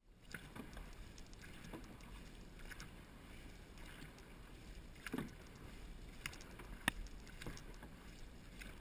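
Dragon boat paddles dipping and splashing in calm creek water, strokes coming about a second apart, with one sharp click about two-thirds of the way through.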